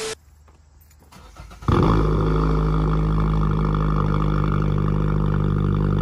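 Car engine starting about two seconds in after a near-silent moment, then idling steadily.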